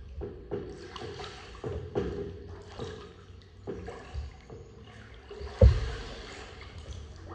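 Kayak paddle strokes and water dripping and splashing inside a corrugated metal culvert pipe, with repeated small knocks. A single loud, sharp thump comes about two-thirds of the way through.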